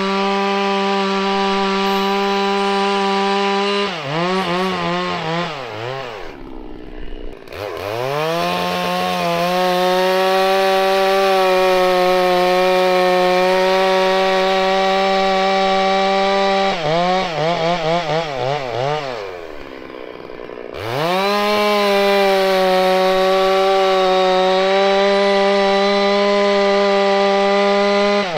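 Large two-stroke chainsaw with a 36-inch bar cutting through a log at full throttle, a steady high engine note. Twice, about 4 and 17 seconds in, the throttle is let off and the engine note wavers and winds down toward idle, then revs back up into the cut.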